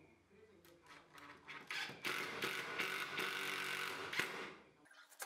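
Cordless drill-driver running into a wooden frame: a few short starts, then it runs steadily for about three seconds before stopping.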